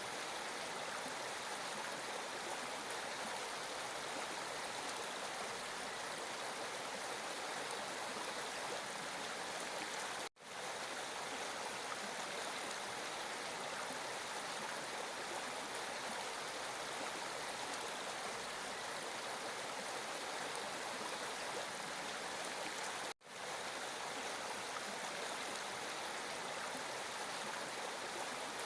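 Flowing water making a steady, even rush, cutting out abruptly for a split second twice.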